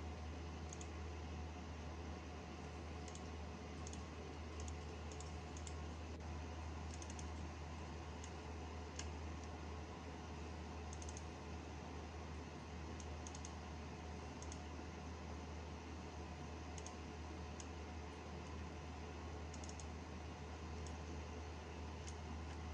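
Irregular light clicks of a computer mouse's buttons, some in quick pairs, over the steady low hum and hiss of a running PC.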